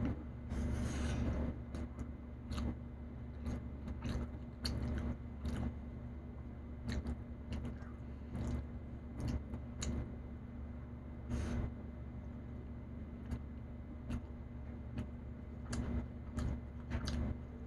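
Chewing and mouth sounds of someone eating with her hands, with fingers picking at food in a takeout container; scattered short clicks and crackles over a steady low hum.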